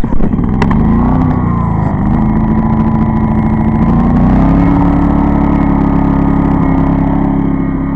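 Pulsar 2300-watt inverter generator's engine catching suddenly and starting up. Its speed wavers for the first couple of seconds, then it runs steadily and steps up a little in pitch about four seconds in.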